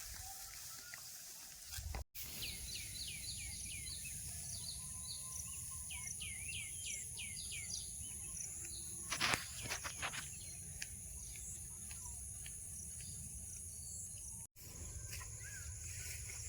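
Outdoor ambience of birds calling in quick runs of short falling chirps over a steady high insect drone. A few sharp clicks about nine seconds in.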